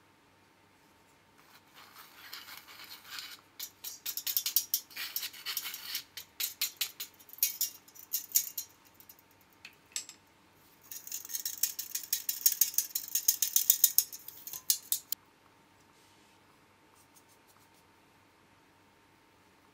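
Handheld metal mesh sieve tapped and shaken to sift cake flour and baking powder into a glass bowl, making quick, rapid rattling taps and scratchy sounds from the mesh. It goes in two spells, the second starting about eleven seconds in and stopping about four seconds later.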